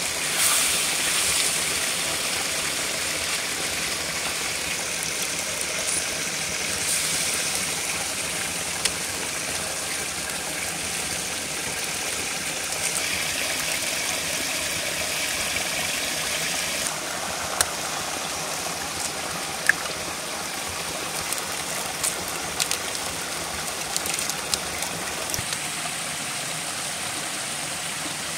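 Chicken stew sizzling and simmering in a cast-iron pot over a fire: a steady hiss with occasional sharp pops.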